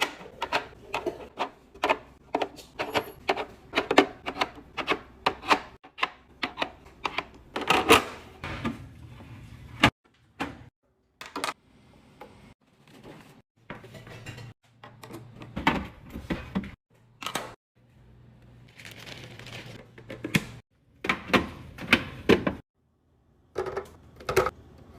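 Plastic containers, jars and bottles being set down and slid onto fridge shelves and into bins, with many irregular clicks, knocks and light clatters. The sound stops dead a few times and resumes.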